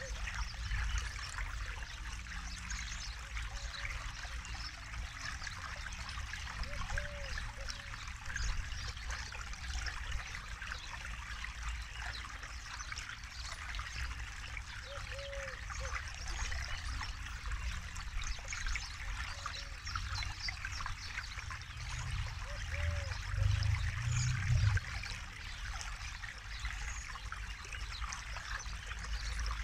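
Forest river flowing over rocks: a steady rush of trickling, splashing water with a low rumble that swells for a few seconds near the end. A faint short low double note recurs every several seconds.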